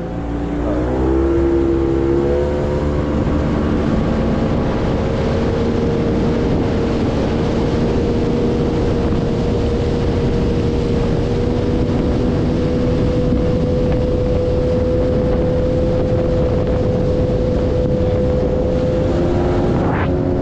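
Boat's outboard motor speeding up over the first couple of seconds, then running steadily at cruising speed, with wind and water noise.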